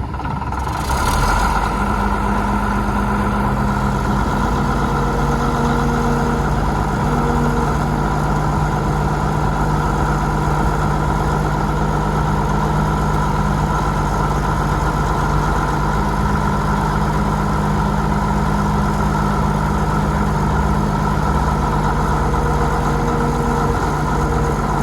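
Cat D8H bulldozer's diesel engine running steadily, growing louder about a second in.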